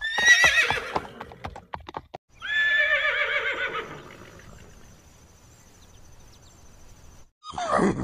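A horse whinnying over the clip-clop of hooves, then a second long whinny that falls in pitch about two and a half seconds in. A short, falling call begins near the end.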